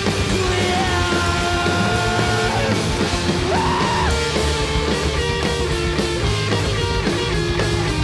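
Rock band playing live: distorted electric guitars, bass guitar and drums. Held guitar notes give way about five seconds in to a choppy, repeated riff.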